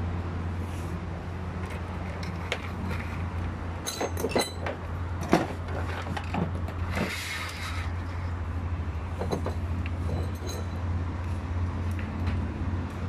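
Scattered metallic clinks and knocks from parts and tools being handled during a pickup roller-shutter installation, the sharpest about five seconds in, over a steady low hum.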